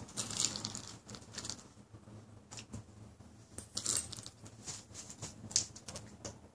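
German shepherd eating dry treats off a carpet: irregular short crunches and snuffles, loudest about half a second in, around four seconds in and again about a second later.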